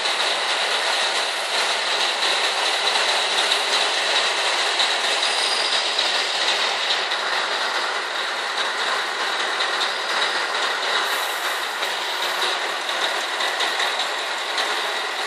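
Steady running noise heard from inside the cab of a Scania R500 truck creeping along a ferry's vehicle deck, its engine running at low speed, with a rattle mixed in.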